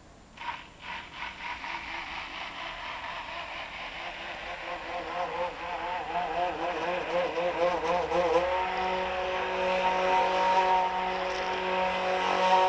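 Hand-held high-shear homogenizer (stick mixer) running with its stainless shaft in a pot of silica-and-ethanol slurry. The motor starts about half a second in with a whine that grows louder, its pitch wavering up and down for a few seconds, then holds steady from about two-thirds of the way through.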